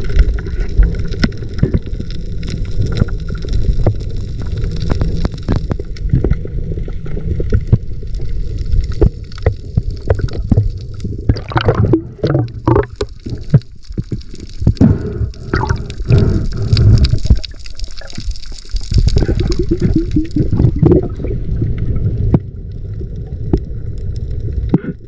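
Sea water gurgling and sloshing against the camera, with a constant low rumble, many small clicks and several patches of bubbling.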